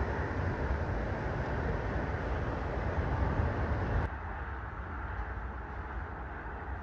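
Wind buffeting an outdoor microphone: a steady rushing noise with a gusty low rumble, dropping somewhat about four seconds in.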